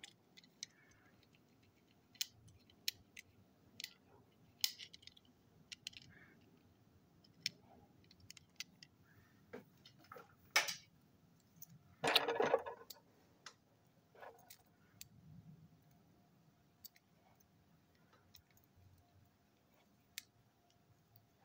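Light clicks and taps of small toy cars being handled and turned over in the hands, scattered and irregular, with a louder rustling clatter about twelve seconds in.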